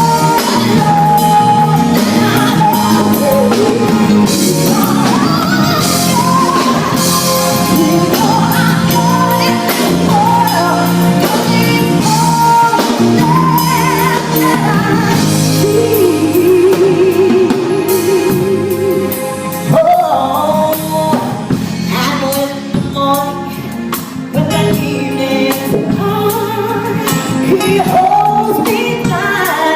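A woman singing a gospel-style song with a live band. She holds one long note with vibrato about halfway through.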